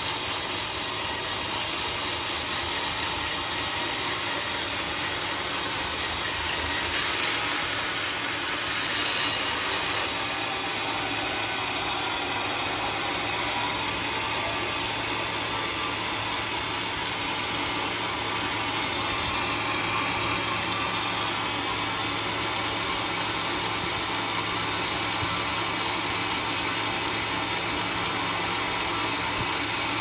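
Homemade bandsaw sawmill running steadily, its blade cutting through a teak log.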